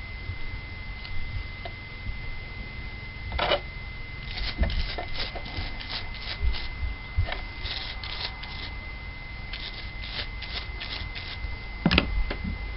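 Toothbrush bristles scrubbing a small carburetor part to clear leftover debris: a quick run of short scratchy strokes, followed near the end by a single sharp knock as the brush is set down on the bench.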